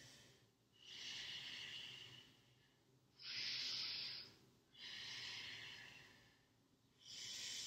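A woman breathing slowly and audibly while holding a yoga pose: a run of quiet, hissy breaths, each lasting about one to one and a half seconds, with short pauses between them.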